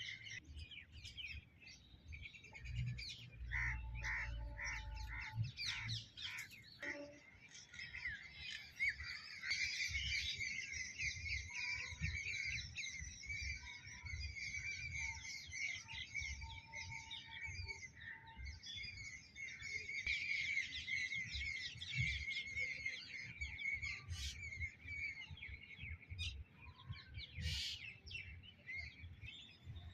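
Many birds chirping and twittering without a break, with a short run of about five repeated call notes a few seconds in.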